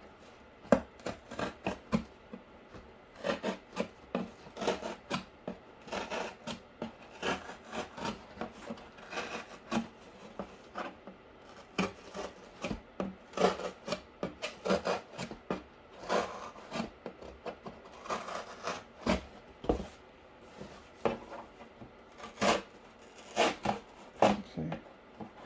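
A knife sawing through corrugated cardboard to cut out port holes, in quick, irregular rasping strokes.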